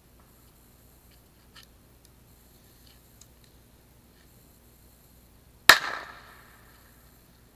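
A single loud firework bang about five and a half seconds in, trailing off in an echo over about a second. A few faint, distant cracks come before it.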